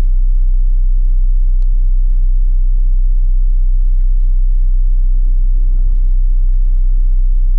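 Steady low rumble of a city bus heard from inside the cabin while riding: engine and road noise.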